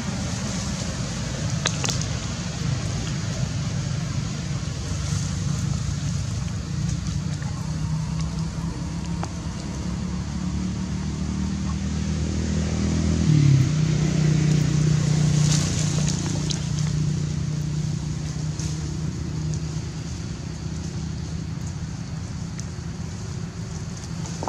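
A low engine hum runs steadily underneath, with a higher hiss above it. About halfway through the hum changes abruptly to a slightly different, louder pitch. A few faint clicks come over the top.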